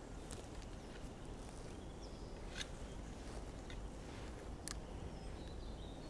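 Quiet riverside ambience: a steady low rumble with faint, distant bird calls. Two sharp clicks stand out, about two and a half and four and a half seconds in.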